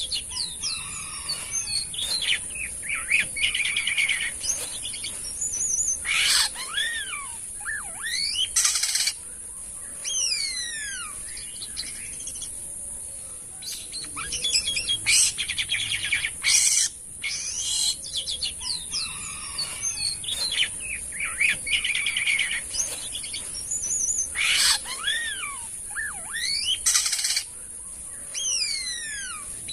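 Jalak kapas starling singing a busy, varied song of rising and falling whistles, chatters and harsh rasping notes, the same run of phrases coming round again about every ten seconds. A steady high hiss runs underneath.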